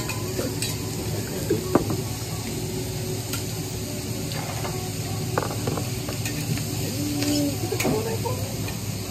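Food sizzling on a hibachi griddle, a steady hiss with scattered sharp clinks and scrapes of metal spatulas on the hot plate.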